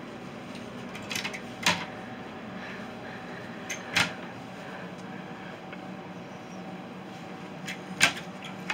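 A pen and a clipboard hung on a wall tap and knock against the wall in a few short, sharp clicks as someone signs a sign-in sheet, over a steady low hum.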